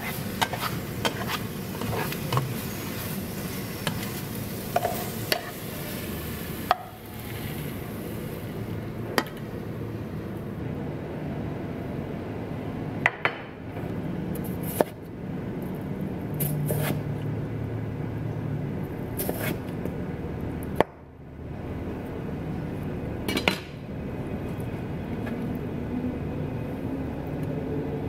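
Minced garlic sizzling in a nonstick frying pan, stirred with a spatula that clicks and scrapes against the pan. After about seven seconds the sizzle stops, and a kitchen knife slicing pickled yellow radish gives a few sharp knocks on a plastic cutting board, several seconds apart.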